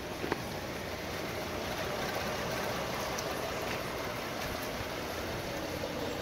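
2014 Hyundai Santa Fe engine idling steadily with the hood open, running smoothly after a repair of its damaged bearings. A light click is heard right at the start.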